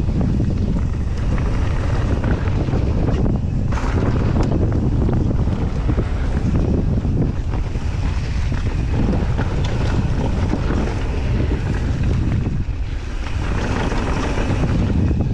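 Mountain bike descending a dry dirt downhill trail: heavy wind buffeting on the camera microphone over the steady roll of knobby tyres on dirt, with a constant patter of small rattles and clicks from the bike and loose ground.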